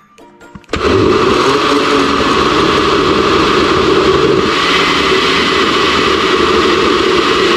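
Countertop blender switched on about a second in, then running steadily at high speed as it purées fruit and liquid in its glass jar.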